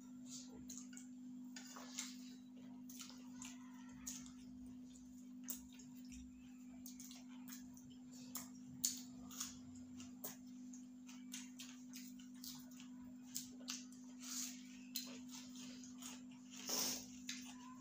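Two people eating rice and chicken curry with their hands: irregular small clicks and smacks of chewing and of fingers working rice on steel plates, a louder cluster near the end, over a steady low hum.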